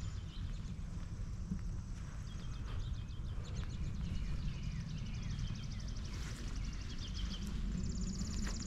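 Songbirds singing: rapid, high, evenly pulsed trills repeated several times, with shorter chirps lower down, over a low steady rumble.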